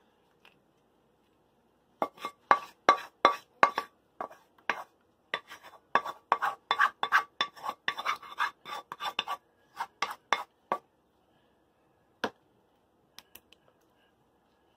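Kitchen utensils clinking and tapping against an aluminium foil pan and sauce pot, several sharp taps a second with a slight ring, as tomato sauce is ladled and spread over a lasagne. The taps stop about three-quarters of the way in, with one more knock after.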